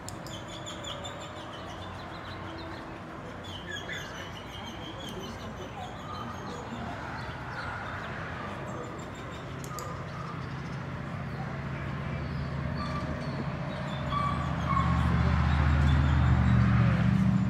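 Outdoor ambience with birds chirping, then an engine drone building over the second half and loudest near the end.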